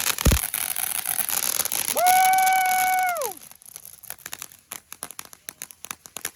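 Consumer fireworks crackling densely, with one low thump just after the start. About two seconds in, a person gives one long held "woo" that drops in pitch as it ends. After that, scattered pops and crackles die away.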